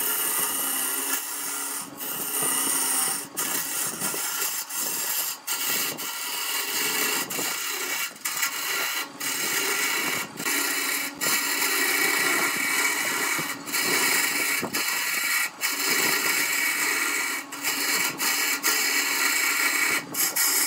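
Hand-held turning tool cutting a wooden vase blank spinning on a wood lathe: a steady scraping hiss of shavings coming off, broken by brief gaps here and there.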